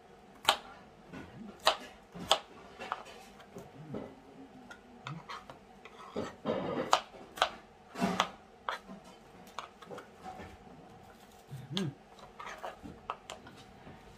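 Kitchen knife cutting onions on a cutting board: sharp, irregular knocks of the blade on the board, with some scraping and clatter in between.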